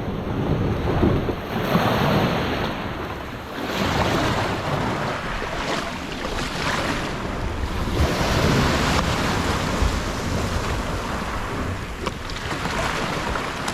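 Ocean surf washing in, with wind buffeting the microphone.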